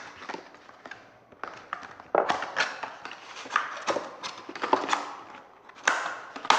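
Irregular clicks and knocks of small plastic paint pots and lids being handled and snapped shut, busiest from about two seconds in.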